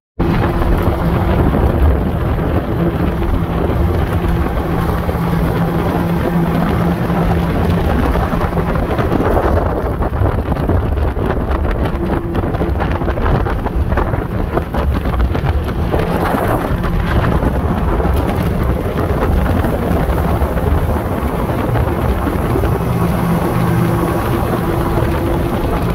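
Motorboat engine running steadily at speed, a constant low hum under heavy wind buffeting on the microphone.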